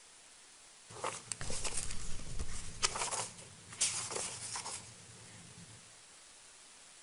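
Paper rustling and shuffling close to a microphone, as pages are handled: a run of short, crisp rustles from about one second in to about five seconds in, with quiet room tone around them.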